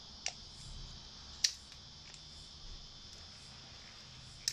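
Sharp plastic clicks from fingers prying at the battery and plastic housing of a ZTE MF910 pocket Wi-Fi modem: one about a third of a second in, a louder one about a second and a half in, and another at the very end. Behind them, a steady high chirring of crickets.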